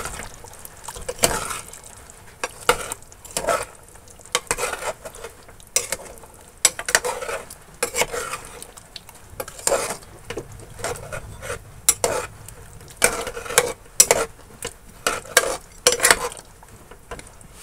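Metal spoon stirring a thick, wet pork curry in an aluminium pot, with irregular clinks and scrapes against the pot's sides and bottom, one or two a second.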